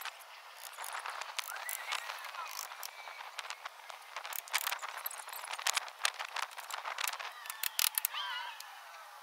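Sped-up work sounds from a fence job: a rapid, uneven scatter of sharp clicks and knocks, with brief squeaky, chirp-like voice fragments near the end.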